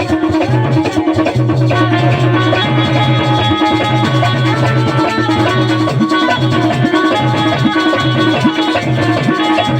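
Instrumental interlude of Bundeli Rai folk music: drums and rattling percussion under held melodic notes and a pulsing bass line.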